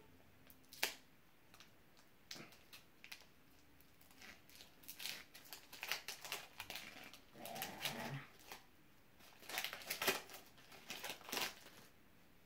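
Foil wrapper of a Pokémon TCG booster pack crinkling as a child's hands tear it open, in irregular bursts of crackling.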